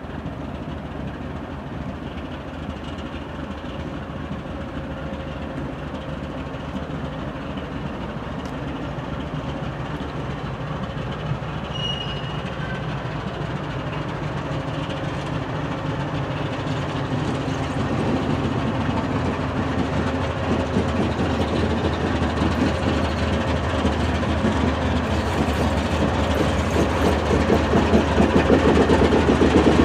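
BNSF ES44C4 diesel-electric locomotive, with a second GE diesel unit trailing, approaching with a steady engine drone that grows steadily louder as it nears.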